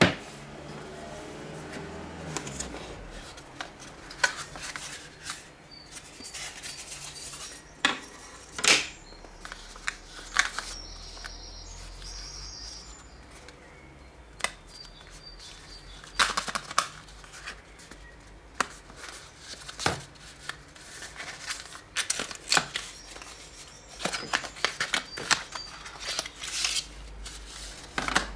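Hands handling a Samsung Galaxy Note 8 retail box and its contents during unboxing: irregular clicks, taps and rubbing of cardboard and plastic, busier in the second half.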